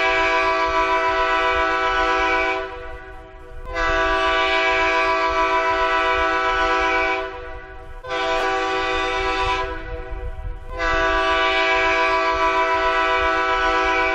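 Diesel locomotive air horn sounding four steady blasts, each a few seconds long, with short gaps between them; the third is weaker and shorter. Four blasts is the railroad horn code for 'repeat your signal'.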